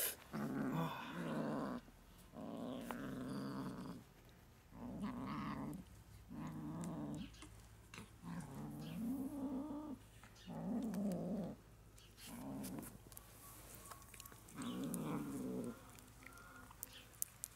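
Grey kitten growling over the meat it is eating from a hand: food-guarding growls that come in about nine spells of a second or so, one after another with short breaks.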